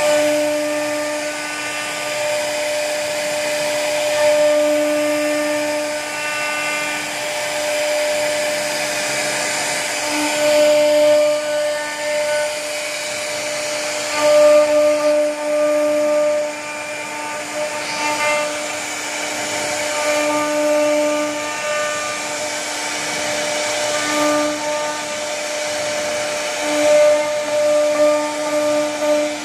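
CNC router spindle running at high speed with a steady whine while its bit cuts wood, the cutting noise swelling and easing every few seconds as the bit moves through the carving.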